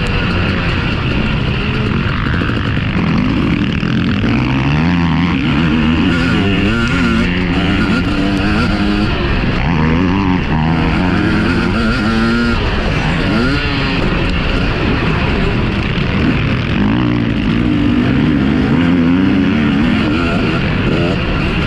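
Several motocross bikes riding at speed, their engines revving up and down. Overlapping engine notes rise and fall in pitch.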